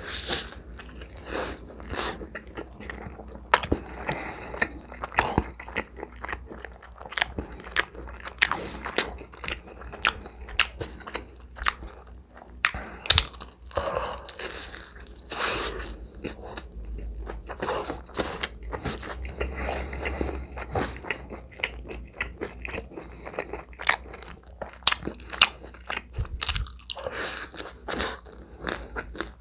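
Close-miked biting and chewing of a shrimp pizza slice and its baked crust: a long run of sharp, separate crunches with chewing in between.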